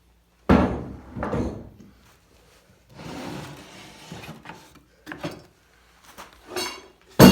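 Workshop handling noises: scrapes and knocks as hardware is moved about, then a loud clank with a ringing tail near the end.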